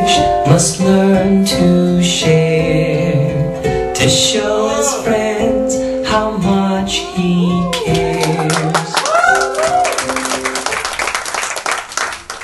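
Music with singing over a plucked string instrument, in steady held notes. Near the end the low notes drop out and a busier, brighter texture takes over.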